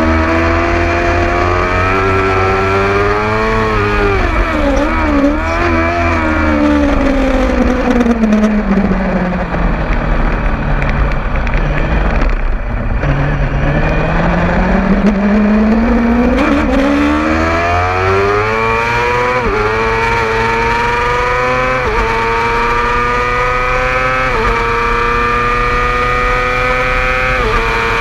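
600cc sport motorcycle engine at racing speed, heard from on board. The revs fall away as it slows for a corner, bottom out about halfway, then climb steadily. Four upshifts follow, each a sudden drop in pitch, with a steady rush of wind underneath.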